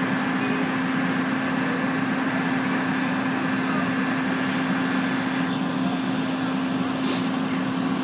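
An engine running steadily at a constant speed, giving a steady low hum with a haze of noise over it. A brief high hiss comes near the end.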